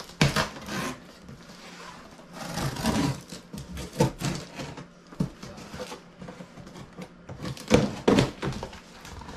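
Cardboard box being slit open and brown kraft packing paper being torn and crumpled. The sound comes in several separate bursts of rustling and tearing, the loudest near the end.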